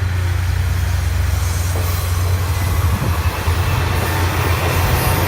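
Aizu Railway AT-400 and AT-351 diesel railcars running past, the diesel engine giving a steady low hum over the noise of the wheels on the rails.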